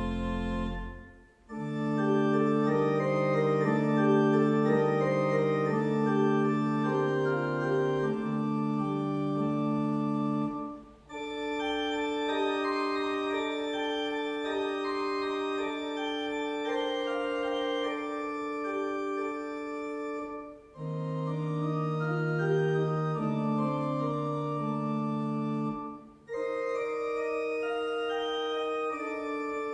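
Organ playing a slow prelude in long held chords, with four short breaks between phrases.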